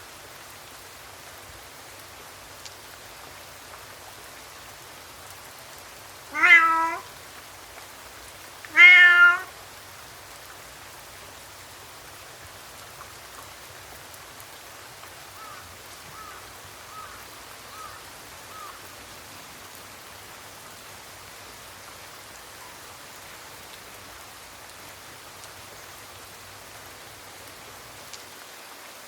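Steady rain falling, with a cat meowing loudly twice, about six and nine seconds in. A few faint short chirps follow near the middle.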